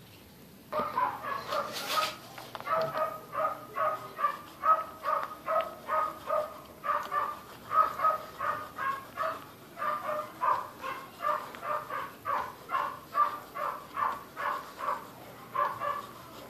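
An animal calling over and over in short, evenly paced calls, about three a second, starting just under a second in; a single sharp click about two seconds in.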